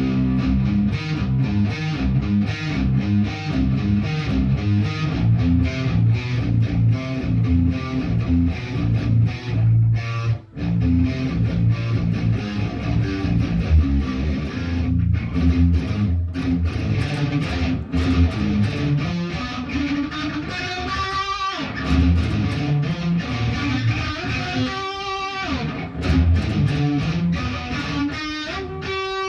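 Electric guitar being practised: a fast run of picked low notes and chords, with a brief break about ten seconds in, then longer held notes that slide and bend in pitch.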